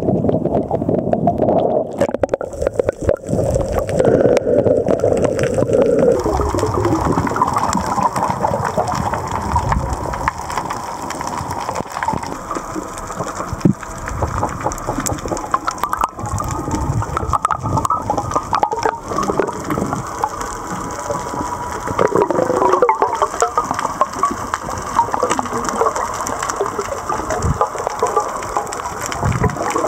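Water rushing and bubbling as picked up by a camera underwater: a muffled, churning noise with scattered small clicks.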